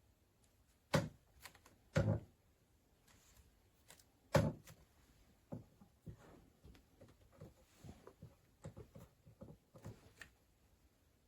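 Handling noise of hard objects: three sharp knocks in the first half, then a run of lighter clicks and taps.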